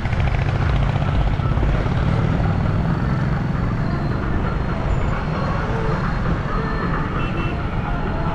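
Steady road and wind noise from a Maruti Suzuki Ertiga driving in city traffic, a loud, even low rumble.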